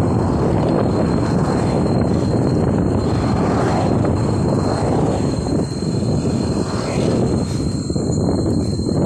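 Wind rushing over the microphone of a bike-mounted camera on a moving road bike: a loud, steady, rumbling rush with no clear pitch, with oncoming cars passing. A faint steady high tone runs under it.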